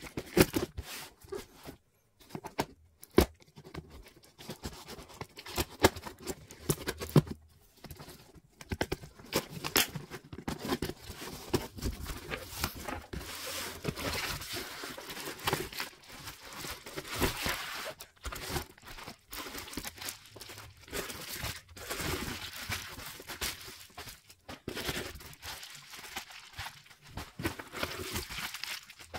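A box cutter slitting through a taped cardboard box, then bubble-wrapped, taped packages crinkling and crackling as they are pulled out and handled, with irregular sharp crunches and knocks.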